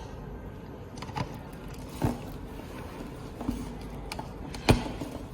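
A few short sharp clicks and knocks from the car head unit's wiring harness cables and plastic plugs being handled. The loudest knock comes near the end.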